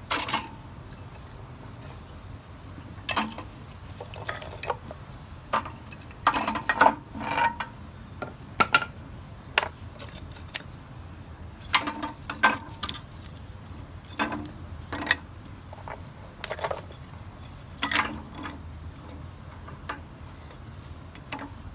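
Irregular clinks and knocks, often a few in quick succession, over a steady low rumble.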